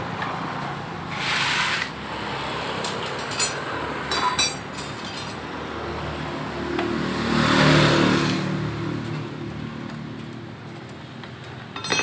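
Light metallic clinks of hand tools being handled, a cluster of them about three to five seconds in, over a motorcycle engine hum that swells and fades around eight seconds in.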